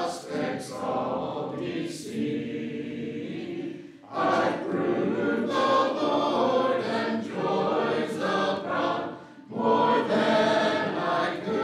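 A congregation singing a hymn together a cappella, in phrases with short breaks about four and nine seconds in.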